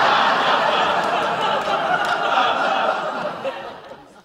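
Sitcom studio audience laughing, a crowd's laughter that dies away near the end.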